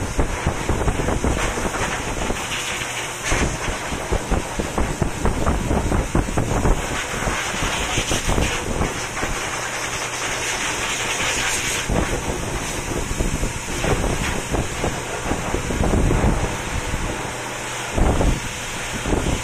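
Pet grooming blower running steadily, its air stream blowing through a long-haired cat's coat, with irregular low buffeting of air on the microphone.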